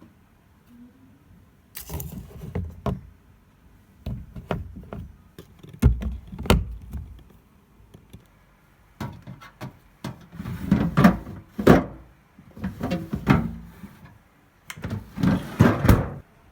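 Household handling sounds: repeated knocks, thuds and clatter in short bursts, like a door, drawers or containers being opened, moved and set down, with brief quiet gaps between bursts.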